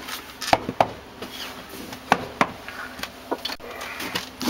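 A series of irregular sharp knocks and clicks from a wooden door being handled as someone steps in through it.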